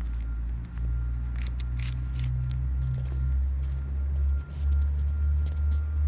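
Low, uneven rumble with a few faint scattered clicks, from a hand-held phone microphone carried while walking.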